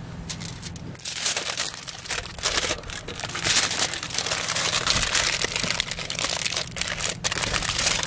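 Aluminium foil crinkling and crackling as hands fold and press it around a sandwich. It grows much louder about a second in and keeps on in quick, uneven crackles.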